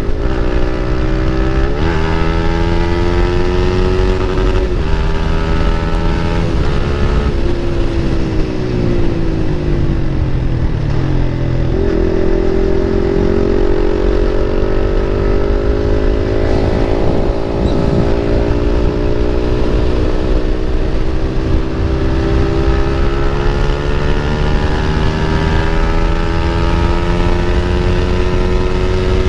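Motorcycle with an aftermarket Akrapovic exhaust under way, accelerating up through the gears with quick shifts in the first several seconds. The engine then drops in pitch as the throttle closes, and from about twelve seconds in it pulls steadily, its pitch rising slowly.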